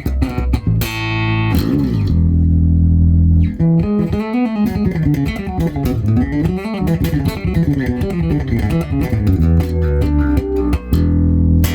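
1997 Fender American Deluxe P-Bass played solo. It plays plucked notes, including a long held low note early on, then a busy run of quickly moving notes, and it ends on a held note that stops suddenly.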